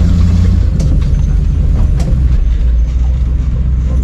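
Off-road wrecker's engine running with a loud low drone while the truck creeps forward, its note easing down just under a second in. Two sharp snaps, about one and two seconds in, stand out over it.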